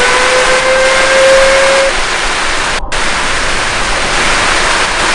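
Loud static hiss with a siren's tone underneath, a single pitch with overtones that has slowly risen and now holds steady before cutting off about two seconds in. The static runs on, breaking off for an instant just under three seconds in.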